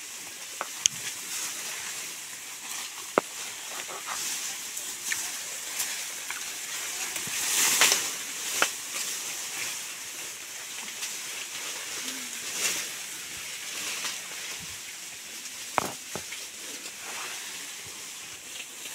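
Tall grass and leaves rustling and swishing as elephants push through, brushing against the animals and the recording phone, with a few sharp clicks and a louder surge of rustling about eight seconds in.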